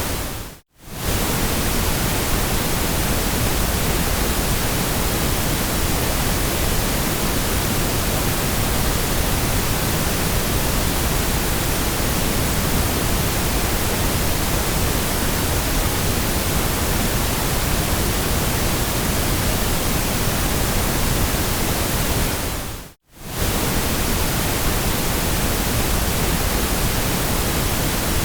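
Steady synthetic white noise, an even hiss spread evenly from the lowest to the highest pitches. It fades out to silence and straight back in twice, about a second in and again near the end.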